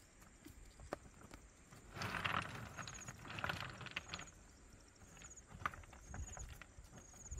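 Footsteps in sandals climbing a slope of loose stones and grass, with scuffing, rustling and the odd sharp clack of stone. A faint insect chirps about once a second.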